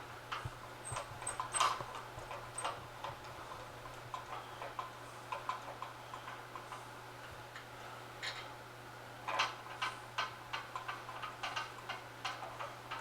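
Scattered light metallic clicks and taps, some in quick runs, from hand tools and small parts being worked while a winch brake cable is fitted, over a low steady hum.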